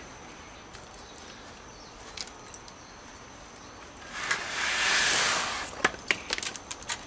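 Aircrete block being slid and worked loose from its mold: a scraping swell lasting about a second and a half, starting about four seconds in, then several light knocks and clicks.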